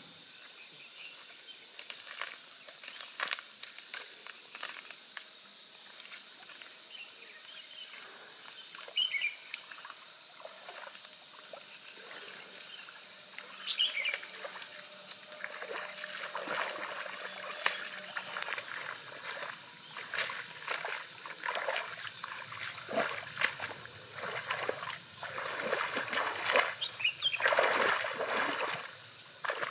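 Footsteps crunching and rustling through dry grass and reeds, turning to sloshing and splashing as she wades into a shallow stream near the end. A steady high-pitched drone runs underneath, with a few brief chirps.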